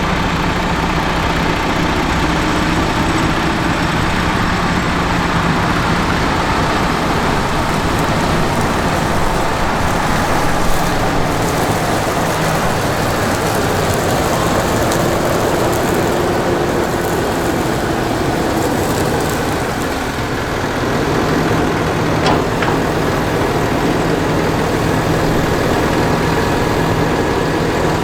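Heavy diesel harvest machinery running steadily under load: a constant engine drone with a rushing mechanical noise over it, easing slightly about two-thirds of the way through.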